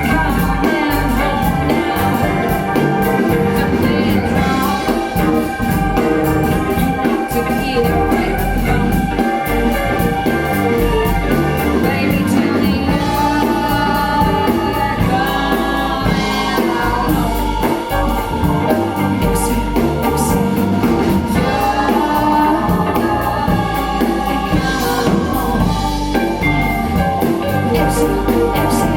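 A song with a lead singer and backing voices over a steady beat, played back through a pair of KEF LS50 bookshelf speakers.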